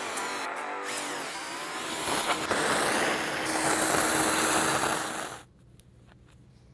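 Ridgid wet/dry shop vacuum running with a steady whine, sucking up drilling debris from freshly drilled holes in a truck roof, then switched off abruptly about five seconds in.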